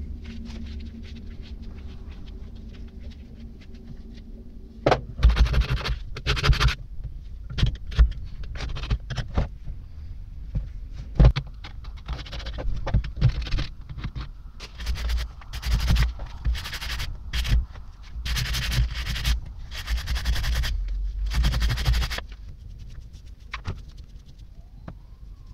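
Screwdriver scraping caked grime out of a greasy vise part, metal on metal. Faint ticks over a low hum at first, then from about five seconds in irregular bursts of scraping with sharp knocks, the loudest about eleven seconds in, dying down near the end.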